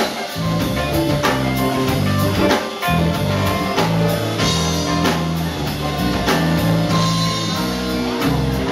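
Live lounge jazz band playing, with a drum kit keeping a steady beat under sustained bass notes and guitar.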